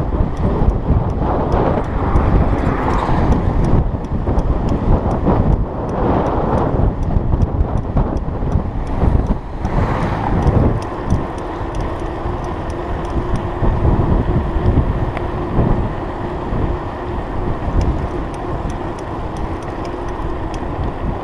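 Wind buffeting the microphone of a handlebar-mounted camera on a moving mountain bike, mixed with tyre noise on rough asphalt and light clicks and rattles from the bike; the rushing swells louder a few times.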